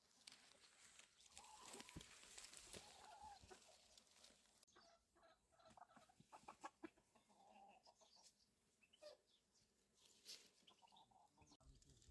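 Faint clucking of chickens, short calls repeated every second or two, with scattered light clicks.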